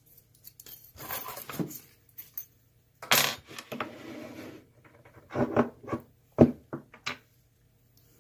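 Small metal parts of an ASSA Twin lock and hand tools clinking, scraping and clicking as the lock is taken apart. There is a scrape a few seconds in and a cluster of sharp clicks later on, the loudest being one hard click.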